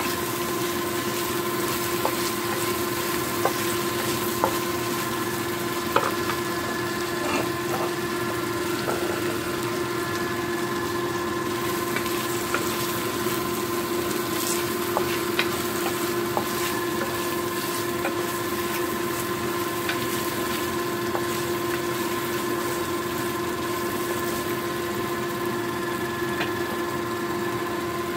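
Sliced sausages sizzling in a frying pan, with scattered light clicks of a utensil stirring them against the pan. A steady hum runs underneath.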